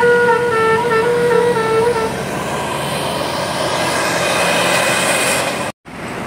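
Musical telolet bus horn playing a stepped tune of clear, changing notes, which stops about two seconds in. It is followed by the broad noise of the bus going by, swelling to a hiss before an abrupt cut near the end.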